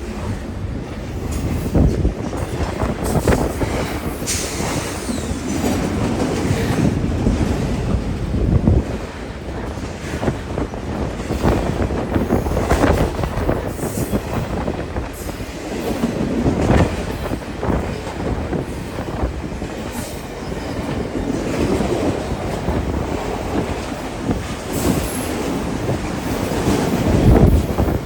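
A long freight train's cars rolling past, steel wheels running on the rails, the noise swelling and easing every few seconds as the cars go by.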